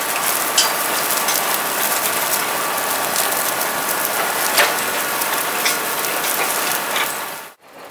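Spring-tine cultivator and crumbler roller dragging through dry, stony soil: a steady dense rattle and hiss peppered with clicks of stones and clods against the steel, with a couple of sharper clacks. It cuts off abruptly near the end.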